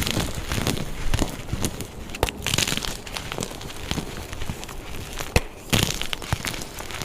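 Dyed gym chalk blocks being crushed: a run of crunching and crumbling with sharp cracks and snaps as the blocks break apart.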